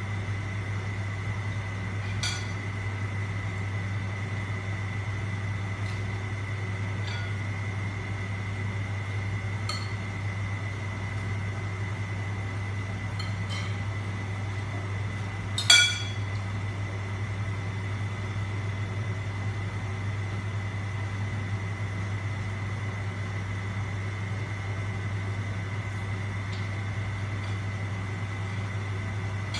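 Tableware clinking during a meal: a few light clicks and one louder, ringing clink of a utensil against a ceramic bowl a little past halfway. A steady low hum runs underneath.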